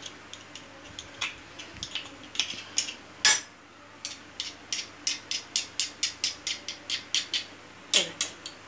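Table knife tapping and scraping against a metal garlic press, knocking crushed garlic off it: sharp metal-on-metal clicks, one loud knock about three seconds in, then a quick run of about five clicks a second for some three seconds, and one more near the end.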